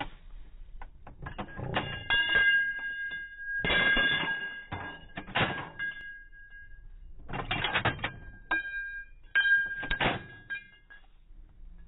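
Metallic clicks and clinks in several clusters, many with short ringing notes: a Vickers machine gun being handled to clear a stoppage, with ejected brass blank cases ringing against metal.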